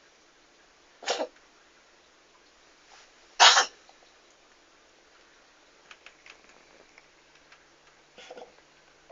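A cat sneezing twice: a short sneeze about a second in, then a louder one about two seconds later.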